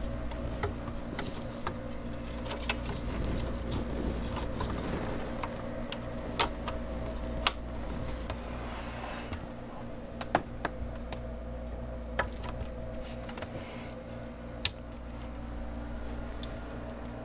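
A steady low electrical buzz with several stacked tones, broken by occasional sharp clicks and knocks, about half a dozen of them standing out.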